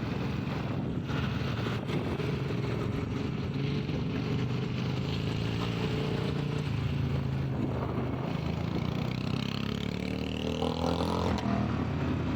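Royal Enfield Bullet 350's single-cylinder engine running through a long Punjab aftermarket silencer while riding, a steady exhaust note that rises in pitch near the end.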